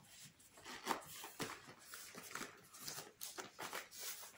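Metal zipper drawn around a Louis Vuitton monogram canvas cosmetic pouch packed full of makeup, mixed with rubbing and scraping of the coated canvas as it is handled: a run of short raspy strokes, several a second.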